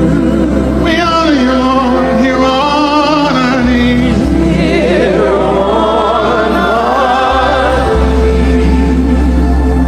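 Slow gospel worship music: sustained chords over a steady low bass, with a lead melody of long notes sung or played with heavy vibrato.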